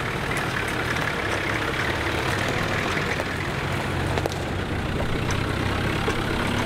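Four-wheel-drive vehicle's engine running steadily with a low hum as it sets off, with a few faint clicks over it.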